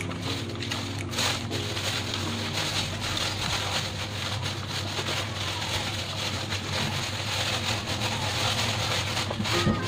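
A wok of greens in coconut milk cooking on a gas burner: a steady hiss with faint crackles over a low hum. Background music fades out over the first couple of seconds.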